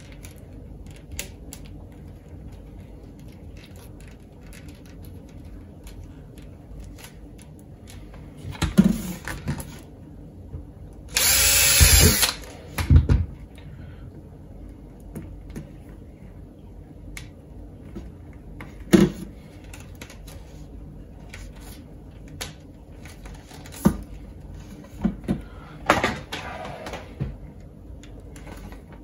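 Cordless drill running for about a second in one loud burst, among scattered knocks and handling sounds on a wooden worktop.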